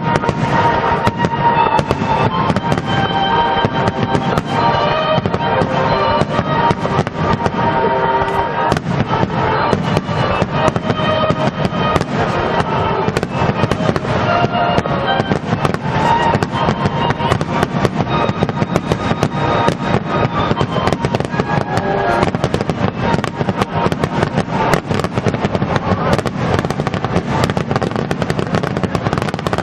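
Dense barrage of aerial fireworks, sharp bursts following each other many times a second without a break, with music that has held tones playing underneath.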